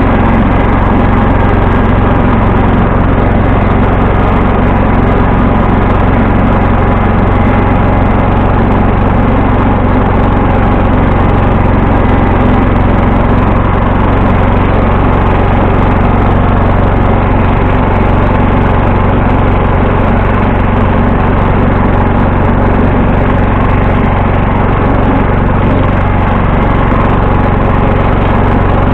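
1974 John Deere 140 H3 garden tractor's single-cylinder Kohler engine running steadily at an even speed.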